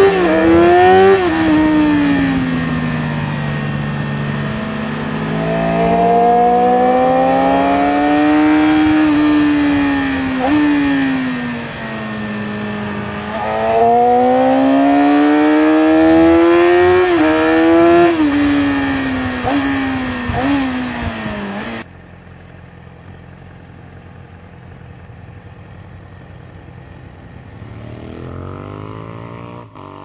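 Yamaha R6 RJ15 inline-four sport-bike engine heard from onboard over wind rush, its note rising and falling as the rider winds it up and rolls off through the bends, with several quick gear-change drops in pitch. About two-thirds of the way through it cuts off abruptly to a much quieter faint engine hum, and another engine note rises near the end.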